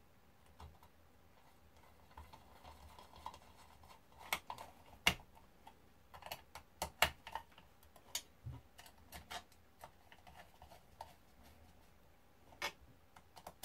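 Small screwdriver driving screws into the end of a finned metal charge-controller case, giving scattered, irregular sharp clicks and ticks of metal on metal. The loudest clicks come about 5 and 7 seconds in.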